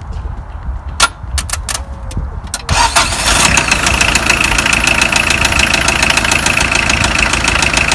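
A few sharp clicks, then a Peugeot 406 1.9 turbodiesel engine cranks and catches almost at once, a little under three seconds in, and runs at idle with a fast knock from the bottom end, which the owner thinks is most likely worn crankshaft bearing shells.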